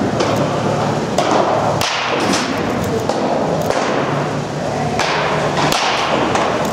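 Baseball bat hitting pitched balls in an indoor batting cage: several sharp cracks, roughly a second apart, over a steady low hum.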